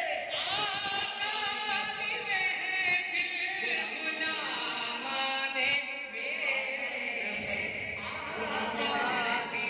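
A man singing a naat, a devotional song, into a microphone amplified through a loudspeaker, in long drawn-out notes that waver up and down.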